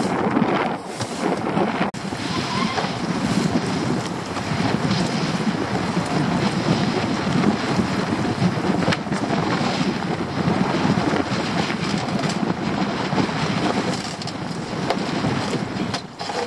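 Strong wind buffeting the microphone over a choppy sea, with waves rushing and splashing along the hull of a small open boat.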